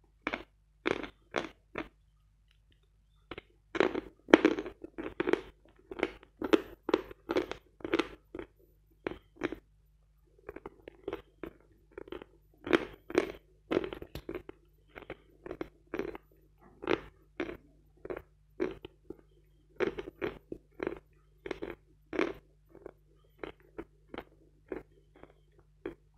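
Dry edible chalk being chewed: crisp crunches about two a second as the teeth grind the bitten-off pieces down, with two short pauses, one near the start and one about a third of the way through.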